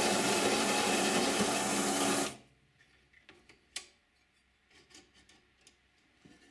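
Electric metal-cutting saw running through bar stock with a loud, rasping noise that stops abruptly about two seconds in, followed by a few faint clicks and knocks.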